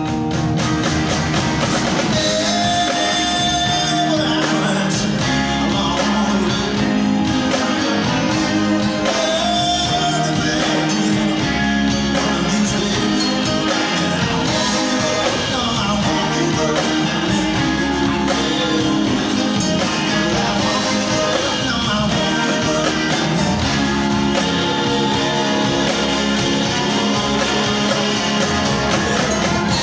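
A live rock band playing a song at a steady volume, with guitar and drums.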